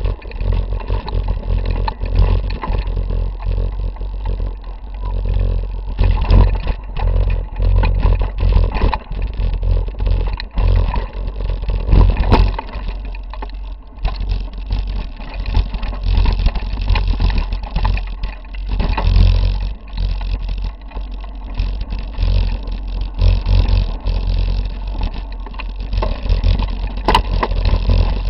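Mountain bike riding over a rocky dirt trail, heard through a handlebar-mounted camera: a constant heavy rumble of vibration with frequent knocks and clatter as the wheels hit rocks.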